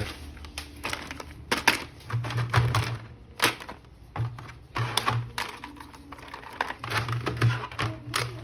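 Irregular clicks and clacks of plastic toy parts and packaging being handled.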